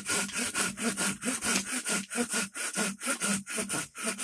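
Small handsaw cutting into a green-wood spoon blank, with quick, even back-and-forth strokes at about four a second.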